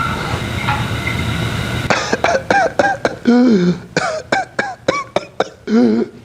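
Whooping cough (pertussis) paroxysm: a rapid run of short, sharp coughs, twice followed by a longer drawn-in whoop, then cut off suddenly near the end. Fainter short pitched sounds come first.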